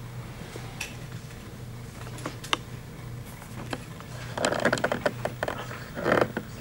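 Quiet room tone with a steady low hum and a few small clicks, then papers rustling and shuffling close to a microphone a little past the middle and again near the end.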